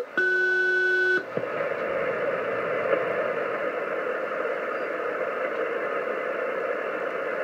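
Two-tone SELCAL call received on HF single-sideband: a high and a low tone sounding together for about a second, the second pair of the call, ending about a second in. Then steady static hiss from the shortwave receiver on the open air traffic control channel.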